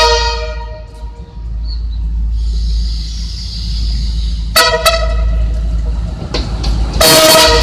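CNR CKD8H diesel locomotive arriving at the station, sounding its multi-tone air horn: a long blast fades out at the start, two short toots follow about halfway, and another blast begins near the end. Between the blasts, the low rumble and hiss of the approaching train.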